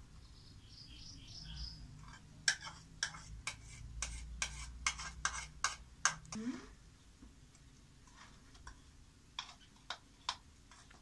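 A metal spoon clicking against a small bowl as beaten egg is scraped out into milk powder dough, a quick run of clicks for a few seconds, then a few sparser taps as the mixture is stirred.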